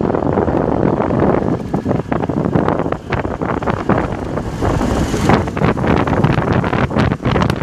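Wind buffeting a phone's microphone on a moving two-wheeler, a loud, gusty rumble over the ride's road and engine noise, with a brief higher hiss about five seconds in.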